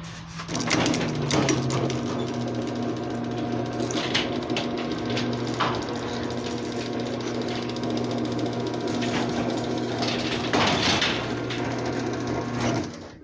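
Craftsman chain-drive garage door opener running: a steady motor hum with the chain rattling along the rail as the trolley travels. It starts about half a second in and stops near the end.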